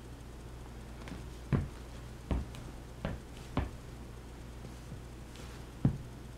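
Air Jordan 3Lab5 sneakers stepping on a hardwood floor as the wearer turns in place and walks off: about six irregular soft thumps, the loudest about a second and a half in and near the end. A low steady hum runs underneath.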